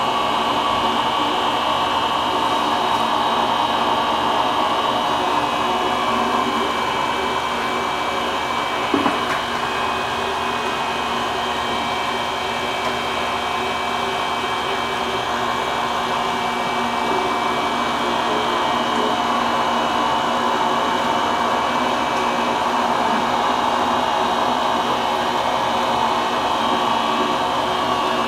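Electric motor of a fish grinder running steadily with a hum, grinding fish into chum, with a single knock about nine seconds in.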